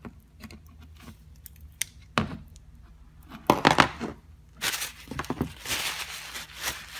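Small metal clicks and taps of a ratchet and hand tools being handled on a wooden workbench, with a louder clatter about three and a half seconds in. Then a cloth rag rubs and wipes grease for about two seconds.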